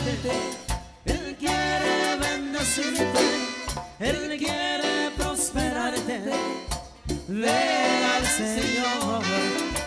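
Live band music with voices singing over saxophones, keyboard and drum kit, in a Latin dance rhythm. The sound dips briefly between phrases about a second, four seconds and seven seconds in.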